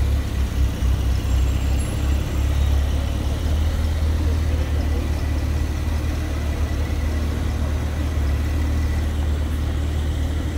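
Porsche 911 Carrera 4S's twin-turbo flat-six running steadily at low revs, a deep, even exhaust note with no revving.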